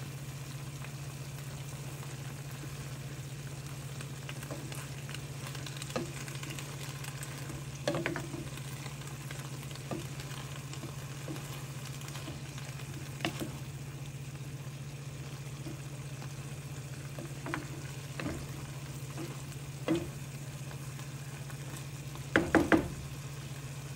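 Stir-fry of sliced pork, green beans, tomato and coriander sizzling in a frying pan as it is stirred with a wooden spatula, which knocks against the pan now and then, loudest in a short clatter near the end. A steady low hum runs underneath.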